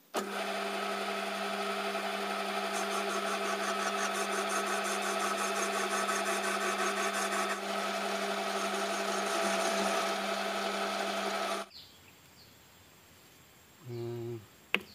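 A handheld electric power tool running at a steady speed as it smooths down the worn, grooved oil-seal surface on a Perodua Kancil camshaft. It is a steady whine that cuts off abruptly about twelve seconds in.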